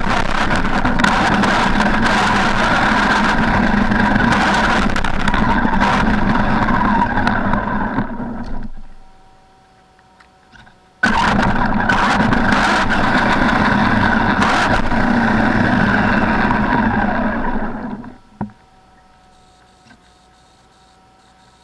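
Traxxas E-Maxx electric RC monster truck driving, with the motor, gears and tyres loud. It stops about eight seconds in, starts again suddenly about three seconds later, and stops again about three seconds before the end with a short knock; a faint steady whine is left while it stands still.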